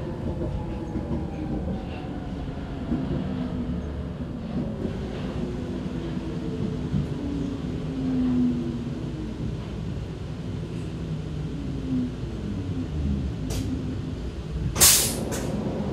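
Vienna U-Bahn metro train braking into a station, heard from inside the car: a low rumble with a motor whine of several tones falling slowly in pitch as the train slows to a stop. About a second before the end comes a short, loud hiss.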